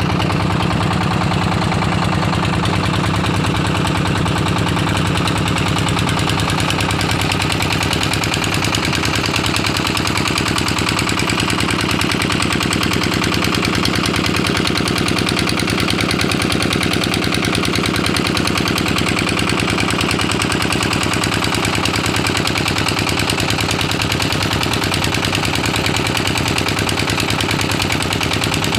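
Single-cylinder diesel engine with a large flywheel running steadily under load, driving a boat's long-tail propeller shaft, with a rapid, even knocking beat.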